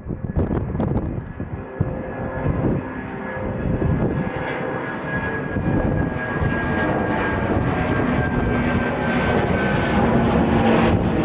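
Jet airliner's engines at takeoff power, the noise building steadily louder as the aircraft comes closer, with a steady whine running through it. Strong wind buffets the microphone near the start.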